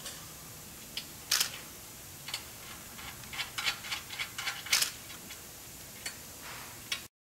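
Scattered light metallic clicks and taps of bolts and Nylock lock nuts being fitted by hand to a metal underbody suspension brace, with a quick run of clicks in the middle. The sound cuts off suddenly near the end.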